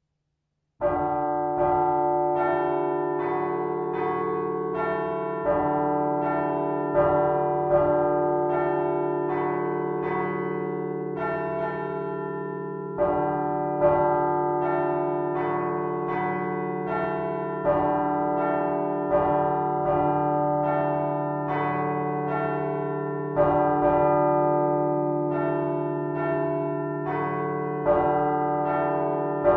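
Several large bronze church bells cast by Michiels of Tournai in 1957 ring together, heard close up in the bell chamber. They start suddenly about a second in, and the strikes fall about every 0.7 s, overlapping over a steady low hum.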